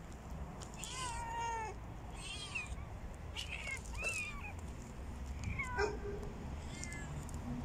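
Stray cats meowing repeatedly, about six short meows in a row, one of them drawn out near the start, begging for food because they are hungry.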